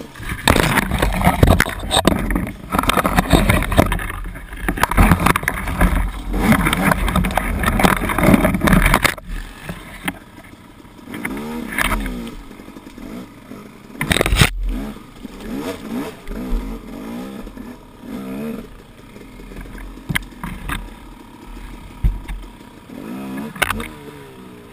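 Dirt bike engine revving hard for the first half, then running at lower revs with the revs rising and falling as it works along a tight trail, with brush scraping past. A single sharp knock comes about halfway through.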